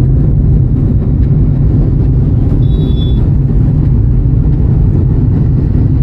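Steady low rumble of a car's engine and tyres on the road, heard from inside the moving car. A brief faint high tone sounds about three seconds in.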